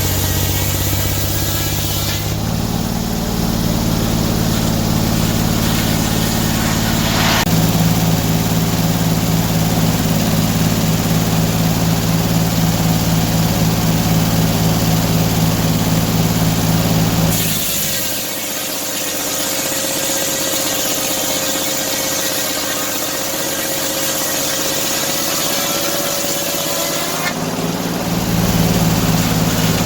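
Portable sawmill's engine running steadily, its sound shifting a few times as it works. For about ten seconds after the middle, the low engine sound drops away and a thin, steady whine takes over before the engine sound returns.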